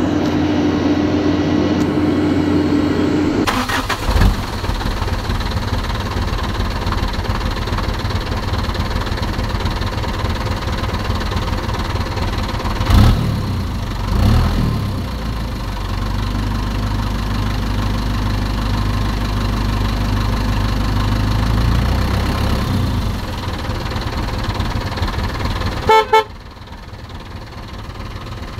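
A horn sounds a steady note for the first few seconds, then a vehicle engine runs steadily, with two loud knocks a little before halfway. It cuts off near the end with a few quick beeps.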